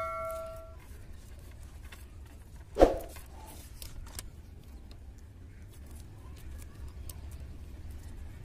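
Hands wrapping and handling black electrical insulating tape and wires: faint scattered clicks and rustles, with one short loud handling noise about three seconds in. At the start, a bell chime sound effect rings out and fades within the first second.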